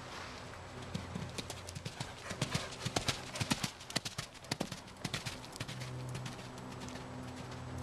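Hoofbeats of a Thoroughbred/Quarter Horse cross (Appendix) mare on the dirt arena footing. They grow louder as she passes close by, about three to five seconds in, then fade as she moves away.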